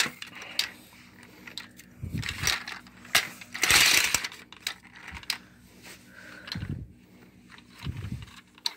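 Plastic toy helicopter with loose beads inside being pushed and handled on a tile floor: irregular clicking and rattling of beads and plastic, with a louder clatter about four seconds in and a few low thumps.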